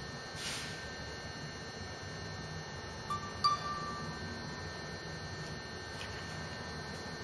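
Steady low electrical hum, with a brief high ringing tone like a small chime and a click about three seconds in.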